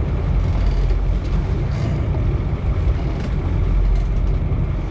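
Steady low rumble and rushing noise of wind buffeting the microphone on an offshore fishing boat, over the wash of choppy sea.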